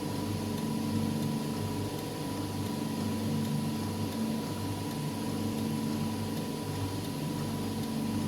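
Wire bonding machine running: a steady electrical and mechanical hum with several low tones that waver slightly and a thin, steady higher tone.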